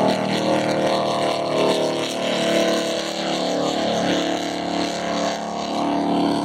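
Motorboat engine running steadily: a continuous drone of several tones held together over the rush of water and wind.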